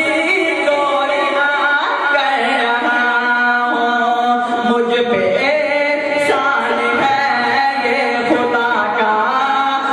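A male voice singing a Punjabi naat, devotional chanting in praise of the Prophet, with long held notes that bend in pitch.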